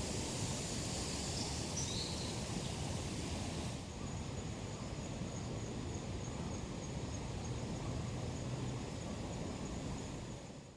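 Steady outdoor background noise, an even hiss with no distinct events, changing character abruptly about four seconds in.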